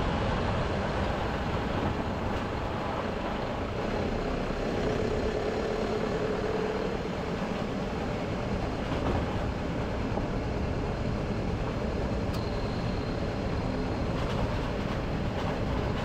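Steady road noise of a vehicle driving along a wet dirt and gravel road: tyre rumble and engine run together as an even noise, with no gear changes or stops.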